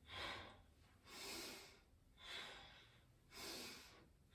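A woman's faint, audible breathing during paced qigong breathwork: four breaths about a second apart, each starting quickly and fading away.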